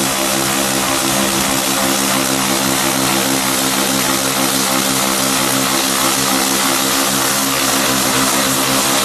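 Pressure washer running steadily, a continuous drone under the hiss of water spraying from a rotary surface cleaner onto clay roof tiles.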